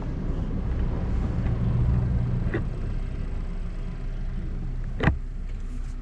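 Car engine idling steadily, with a sharp knock about five seconds in.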